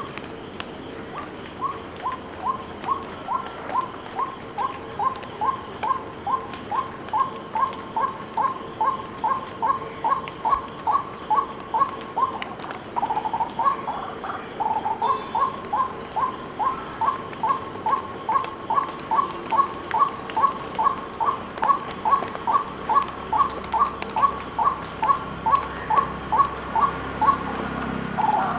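White-breasted waterhen calling: a long, monotonous series of short, even notes, about two to three a second, growing louder. The series breaks briefly about halfway with a harsher note, then resumes.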